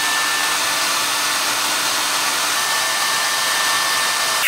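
Handheld hair dryer running steadily on high, a constant rush of blown air with a thin steady whine on top.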